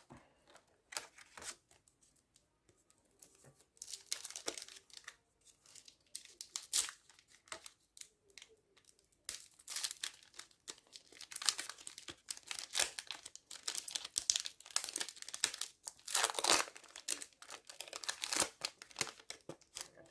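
Trading card pack wrapper being torn open and crinkled by hand, with the cards rustling, in irregular bursts that grow busier from about nine seconds in.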